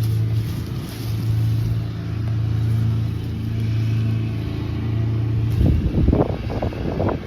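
Lawn mower engine running at a steady pitch, with uneven louder bursts of noise over it near the end.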